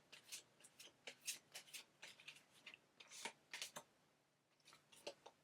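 Tarot cards being handled: faint, irregular clicks and light rustles of cards against each other.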